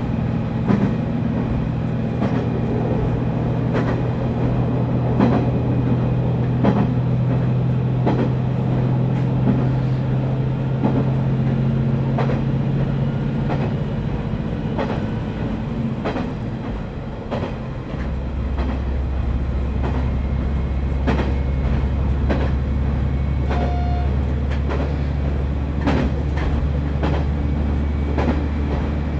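Diesel railcar on the move, heard from on board: a steady engine hum that drops to a lower, steady note about halfway through, under regular clacks of the wheels over rail joints.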